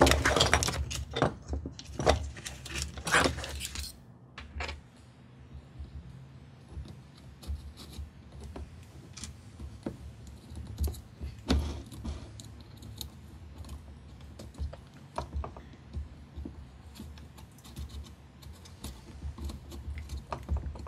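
Small screws and a carbon-fibre quadcopter frame clicking and rattling in the hands as a brushless motor is lightly screwed onto a frame arm. There is a dense clatter of clicks in the first few seconds, then scattered light clicks.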